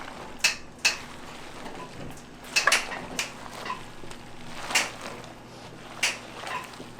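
Kitchen utensils and pans clattering: about six sharp, irregular clinks and knocks, with a steady low background hum.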